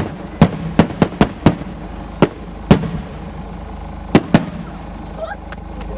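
Aerial fireworks shells bursting in quick, uneven succession: about ten sharp bangs in the first four and a half seconds, then a lull.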